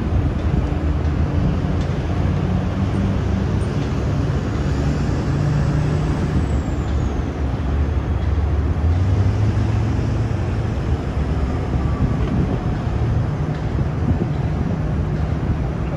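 Heavy-duty tow truck's diesel engine running steadily, its note shifting up and down a few times, as it powers the boom lifting a wrecked car.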